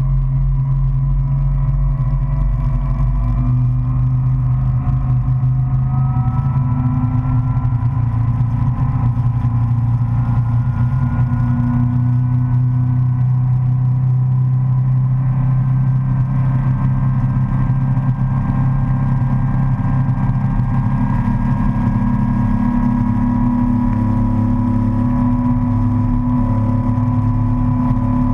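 Motorboat engine running steadily at speed under the load of towing a tube, a constant low drone whose pitch shifts slightly a few seconds in.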